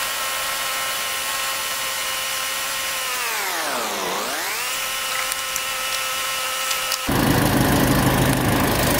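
A steady machine-like whine made of several stacked tones. About four seconds in it dips sharply in pitch and climbs straight back. About seven seconds in it cuts off abruptly and gives way to a broad rushing noise.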